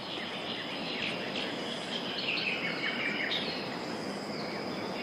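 Outdoor ambience: a steady even hiss with a thin high tone running through it, and a scatter of short bird chirps in the middle.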